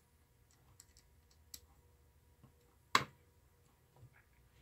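Faint scattered clicks of a small screwdriver, a screw and a brass standoff being worked on a clear acrylic panel, with one sharper click about three seconds in.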